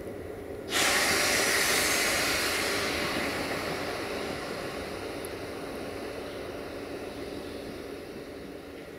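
Sudden loud hiss of compressed air blowing off about a second in, fading slowly over several seconds, over the steady hum of a Romanian 060-EA1 electric locomotive moving slowly.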